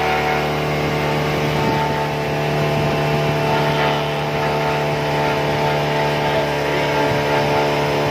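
Small boat's motor running steadily at cruising speed, an even engine hum with water rushing past the hull.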